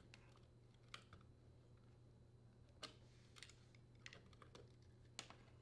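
Faint, scattered plastic clicks and taps, about half a dozen, as wire connectors are worked loose and unplugged from a dishwasher's diverter motor.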